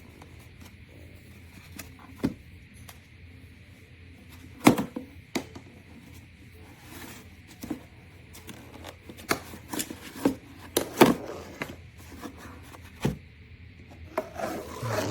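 Scattered clicks and knocks from a handheld cordless tire inflator being handled, with a cluster of them near the middle, over a faint steady hum.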